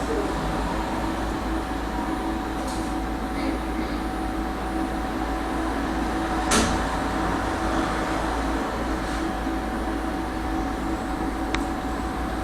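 Tram car running along the track: a steady rumble of wheels on rail with a constant motor hum, and one sharp clank about halfway through and a faint click near the end.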